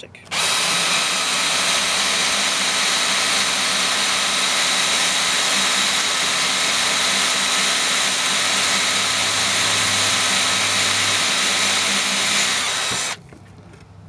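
Ryobi battery-powered drill with a Forstner bit boring through marine-grade plastic at low speed: a steady motor whine with the cutting of the bit, starting just after the beginning and cutting off about a second before the end.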